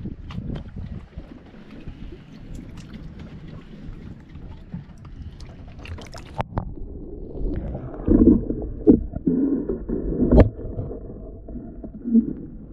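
Handling noise of a pole-mounted camera being lowered into seawater: clicks and knocks at first, then a little past halfway the sound turns muffled and dull as the camera goes underwater, with gurgling and several heavy bumps and knocks.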